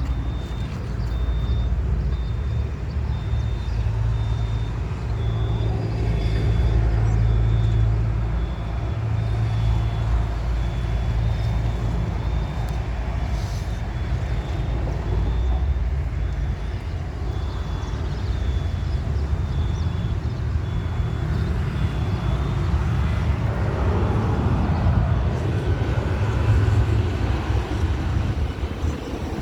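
Boeing 737-800's CFM56 jet engines heard as a low, steady rumble while the airliner approaches, with a pitch sweep in the mid range near the end.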